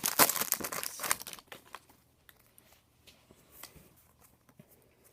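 Wrapper of a 2015 Bowman Draft baseball card pack being torn open and crinkled for about the first second and a half, then faint scattered clicks of the cards being handled.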